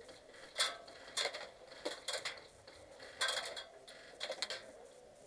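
About six short, sharp clacks at irregular intervals, the sounds of an airsoft skirmish: gunfire and BBs striking hard surfaces.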